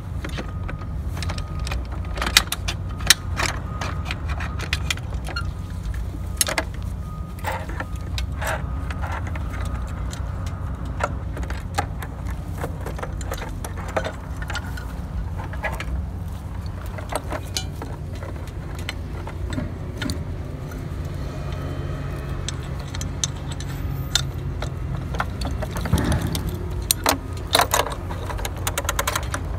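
Metal clinks and clicks of steel pins and brackets being handled as winches are pinned onto a davit arm, scattered irregularly over a steady low rumble.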